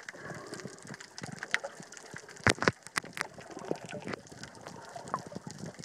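Underwater ambience: a steady low hiss full of scattered crackling clicks, with a few sharper, louder clicks about two and a half to three seconds in.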